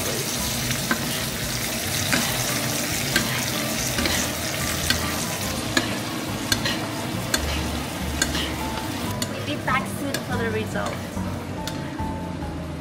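Ribeye steak sizzling in a frying pan of foaming butter while a metal spoon bastes it, with frequent sharp clicks through the steady sizzle.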